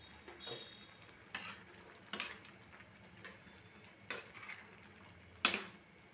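A spatula stirring fenugreek greens in an aluminium kadhai, clinking against the pan a few times, the loudest clink near the end.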